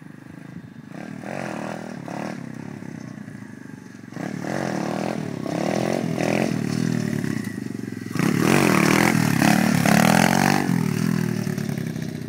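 A 125cc pit bike's single-cylinder engine revving hard in repeated bursts, the pitch climbing and dropping with each twist of the throttle while the bike rides on its back wheel. It grows louder as the bike comes closer, is loudest a little past halfway through, and eases off near the end.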